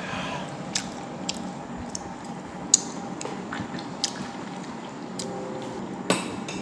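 Chopsticks and china bowls clicking now and then on a metal serving tray at a meal, about seven sharp clicks in all, the loudest near three seconds in.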